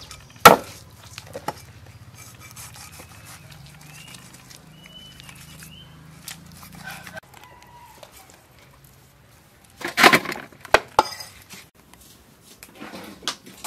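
A kitchen cleaver chopping fish on a hard slab, with a sharp chop about half a second in and a burst of sharp knocks and snaps around ten seconds in. Chickens cluck and crow faintly in the background.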